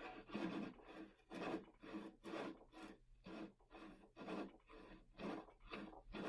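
Fine dovetail saw worked back and forth in a chair tenon's slot, cutting out an old wood wedge and filler. It makes soft, even strokes at about two a second.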